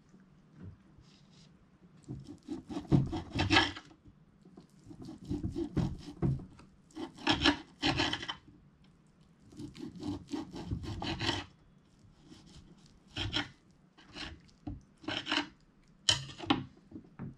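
Table knife sawing through a steak with quick back-and-forth strokes, in several bouts with pauses between.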